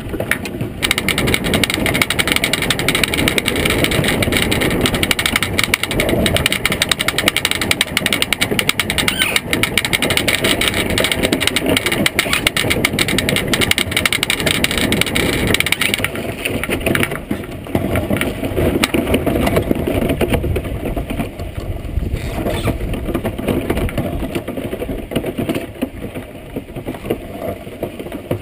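Iceboat runners rumbling and drumming over lake ice, a loud continuous rough noise. About sixteen seconds in, the hiss on top drops away and the rumble goes lower and a little quieter.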